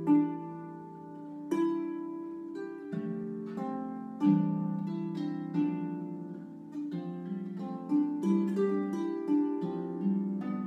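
Small wooden harp played by hand: a slow melody of plucked notes over lower bass notes, each note left ringing into the next.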